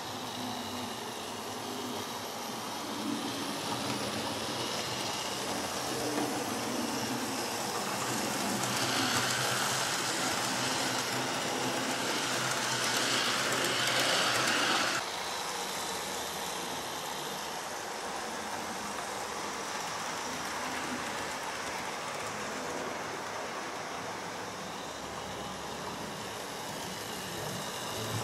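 Model HST (InterCity 125) train running round the layout's track, its motor and wheels on the rails making a steady running sound. It grows louder and brighter about a third of the way in, then drops back suddenly about halfway through.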